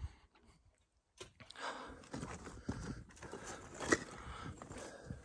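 Irregular crunching and scraping of footsteps on loose rock and gravel, starting about a second in, with a few sharp clicks.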